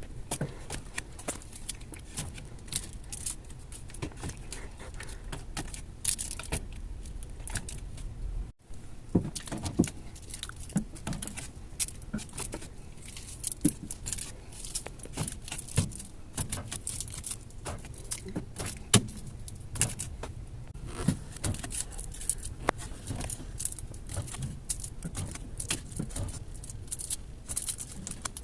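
Many small hard clicks and clinks, irregular and close together, of goods being set down, knocked together and shuffled into place while a store fridge is restocked.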